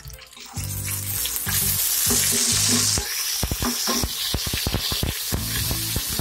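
Chopped garlic sizzling as it fries in hot oil in an aluminium pressure cooker, stirred with a wooden spoon. The sizzle starts about half a second in and is loudest around two to three seconds in, and a run of quick clicks from the spoon against the pot follows in the middle.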